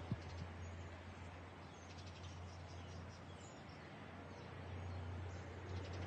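Faint garden ambience: scattered bird chirps over a low steady hum, with a soft thump just after the start.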